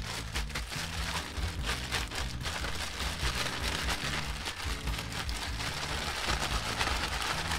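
Vegetable oil with a chili spice blend sizzling and crackling steadily in a frying pan as it heats.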